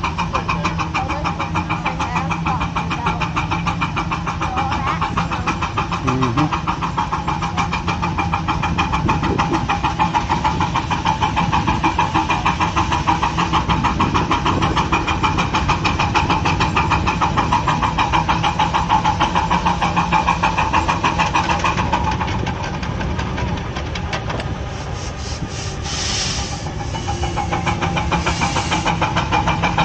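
Pickup truck engine running steadily at low speed with a fast, even pulse, heard close from the truck itself. Near the end come a couple of brief hissing bursts.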